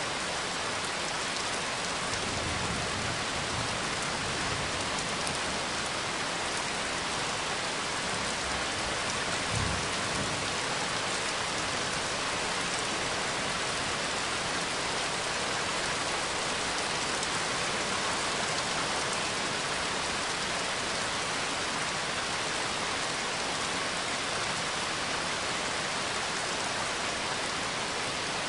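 Steady heavy rain from a rain-and-thunder field recording, a dense even hiss throughout, with a short low rumble of thunder about ten seconds in.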